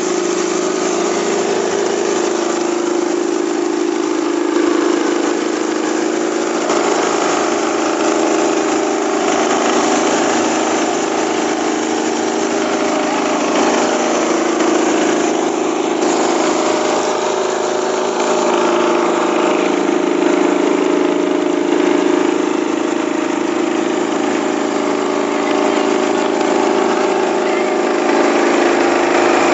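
Small rice husker and milling machine running steadily under load, its motor and belt-driven milling rotor giving a loud, even hum. Over it is a hiss of grain and husks streaming through the mill and out of the chutes.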